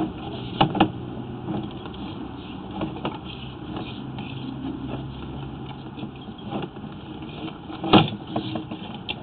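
Sewer inspection camera cable being pulled back out of the drain line: scattered clicks and knocks over a low steady hum that fades out about two-thirds of the way through, with the loudest, sharp knock about eight seconds in.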